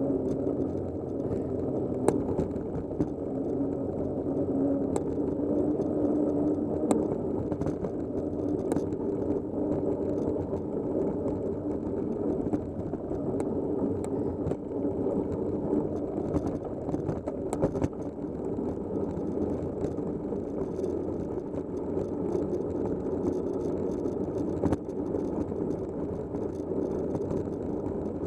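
A vehicle drives down a dirt road with a steady engine drone and tyre noise, plus scattered sharp clicks and rattles from stones and loose parts.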